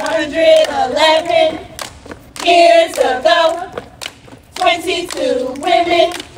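A group of women chanting a step routine in unison: three sung phrases of about a second and a half each, with sharp claps or stomps in the gaps between them.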